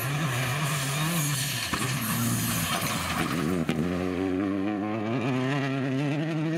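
Rally car engine revving hard as the car slides off the stage across a dry grass field, with the rush of tyres throwing up dirt. The engine note rises and falls, then climbs and holds high from about halfway through.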